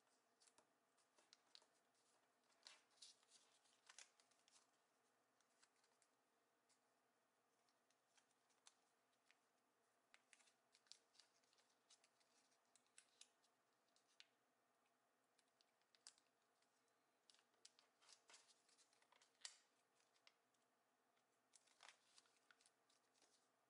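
Faint, scattered crackles and rustles of origami paper being folded and creased by hand, with crisper snaps as folds are pressed flat.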